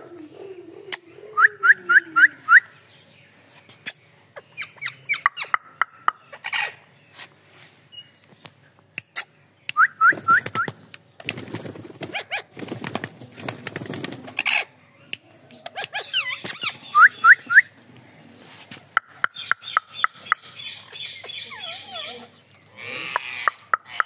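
Rose-ringed parakeets calling: short rising chirps in quick runs of three to five, with sharp clicks scattered throughout. Around the middle, a few seconds of rustling noise.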